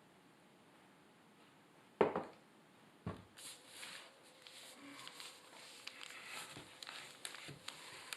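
Two sharp knocks, about a second apart, then light scraping and rustling as sanded grout is prepared and mixed with water by hand.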